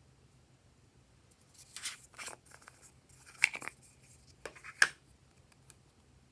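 Glossy slime being squished and pressed by hand, giving three short bursts of sticky clicks and pops.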